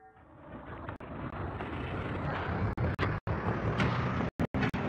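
Rushing, rumbling static noise of a VHS-style intro effect. It swells over the first couple of seconds and cuts out abruptly for an instant about three times near the end.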